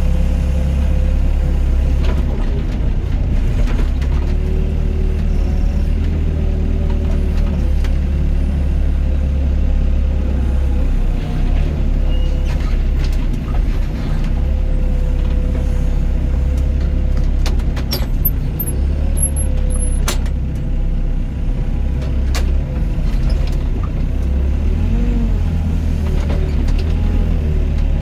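Doosan DX55 mini excavator's diesel engine running under load, with a hydraulic whine that rises and falls as the boom and bucket work. A few sharp knocks sound past the middle.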